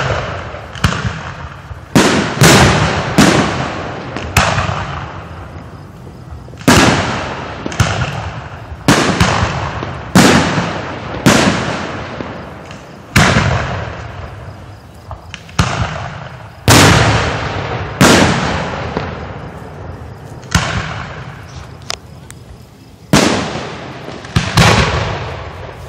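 Aerial firework shells going off in a steady string of loud booms, about twenty of them at roughly one-second intervals, each trailing off in a long rolling echo.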